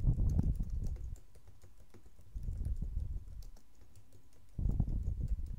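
Typing on a computer keyboard in three short bursts with brief pauses between them.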